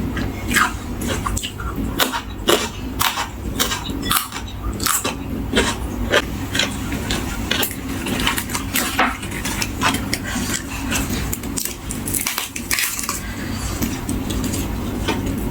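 Eating close to the microphone: a spoon or fork clinking against a dish and crisp vegetables crunching, in irregular sharp clicks two or three a second. A steady low hum runs underneath.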